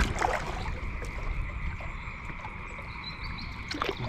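Frogs calling in a steady chorus from the pond, with a kayak paddle splashing in the water about a quarter second in and again near the end.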